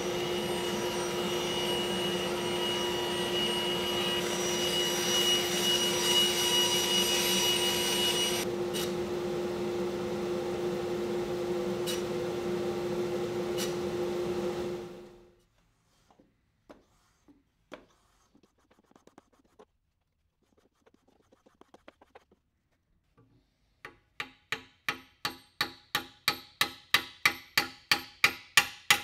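Bandsaw running and ripping a thin wood strip, with a high-pitched cutting sound for the first several seconds; the motor shuts off about halfway through. Near the end, a fast run of sharp hammer taps, about three a second and growing louder, as a wood strip is driven through a steel dowel plate to form a dowel.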